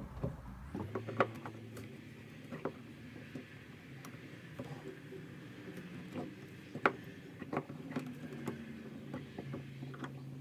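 Scattered small clicks and taps of a QS8 connector and a helping-hand clamp being handled and positioned for soldering, over a faint steady low hum.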